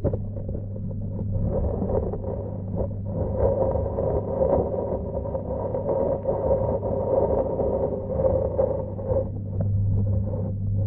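Muffled underwater rumble of pond water picked up by a submerged camera, with a steady low hum underneath.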